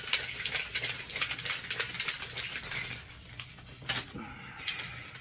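A plastic drink bottle of water and pre-workout being shaken hard, a fast rattling slosh that dies away about three seconds in, followed by a few soft clicks.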